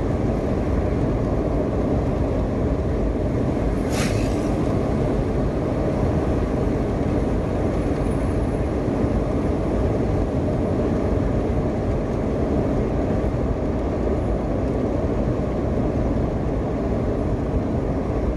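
Steady rumble of a car driving along at speed, engine, tyre and wind noise heard from inside the cabin, with one short sharp click about four seconds in.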